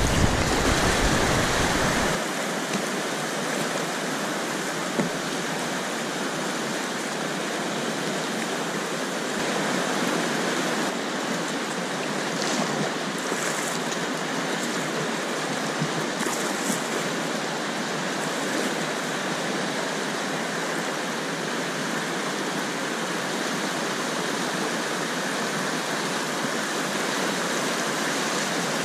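Whitewater rapids rushing steadily around a kayak, heard close up from the boat. A heavy low rumble covers it for about the first two seconds, then drops away.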